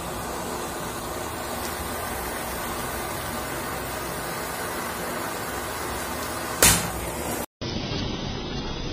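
Butane gas torch running, a steady hiss of flame playing on a laptop circuit board. About six and a half seconds in, a sudden loud burst fades over half a second; after a brief dropout the sound plays in reverse, swelling louder toward the end.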